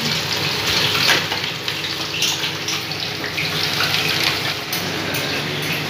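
Diced jackfruit frying in hot refined oil in a kadhai, a steady sizzle and bubbling, with a steady low hum underneath.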